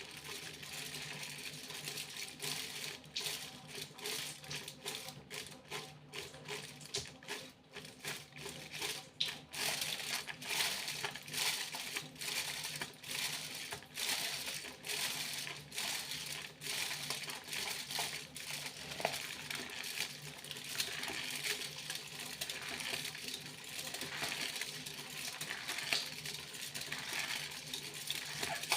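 Foil crinkling and rustling: a dense, continuous crackle of many small sharp clicks.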